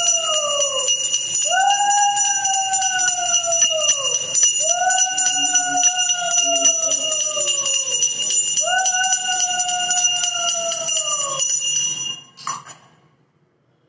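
A brass hand bell rung rapidly and without a break, under four long blasts on a conch shell, each about three seconds long and falling in pitch as the breath runs out. Both stop together about twelve seconds in, followed by a short knock.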